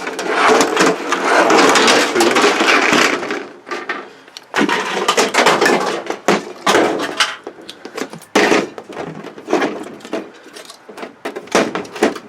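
Plastic sheets and panels of a disassembled LCD television being pulled out and handled: a dense crackling and rustling for the first few seconds, then irregular clicks, knocks and rustles.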